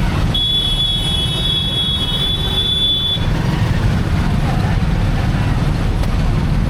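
Wind buffeting the microphone and road noise from a motorcycle ride, a heavy steady rumble. A high thin whine sounds for about three seconds at the start, then stops.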